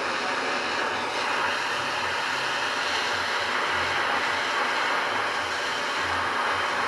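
Handheld gas torch flame burning with a steady hiss, heating a copper pipe joint to solder on a ball valve.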